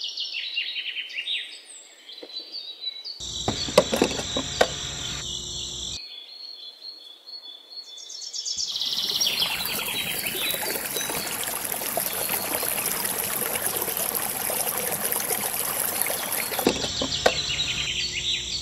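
Nature ambience of chirping birds and a dense, steady insect buzz like crickets, cutting in and out abruptly a few times.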